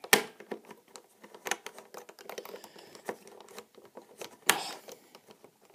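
Plastic pieces of a Dayan Zhanchi speed cube clicking and clattering as they are pushed and snapped into place by hand, with a string of small ticks and two louder clacks, one near the start and one about four and a half seconds in.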